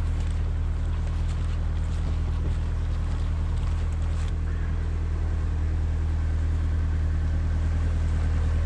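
Narrowboat's diesel engine running steadily under way, a low even drone.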